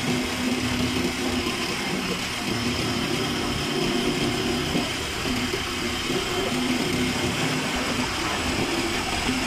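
A motor vehicle's engine running steadily with road noise, heard from inside the moving vehicle.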